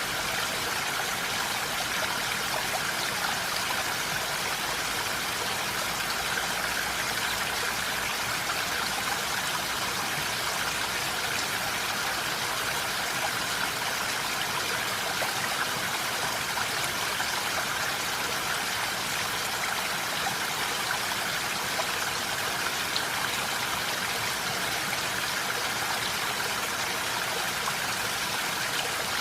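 Steady rain in a forest: an even hiss of falling water that never changes in loudness, with faint scattered drop ticks.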